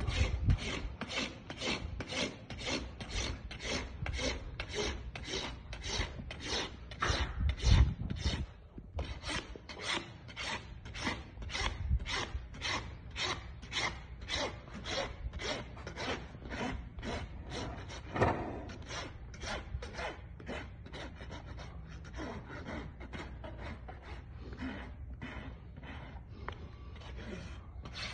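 Farrier's hoof rasp filing a horse's hoof in steady back-and-forth strokes, about two a second, with a brief pause about a third of the way through.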